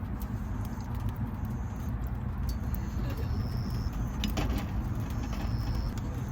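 Wood campfire cooking: a steady low rumble with scattered sharp crackles and light metallic clinks.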